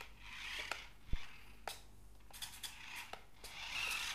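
SY X25 toy RC flying car driving across a tabletop in ground mode: its small electric motors whir in spurts, with scattered light plastic clicks and ticks and one low thump about a second in.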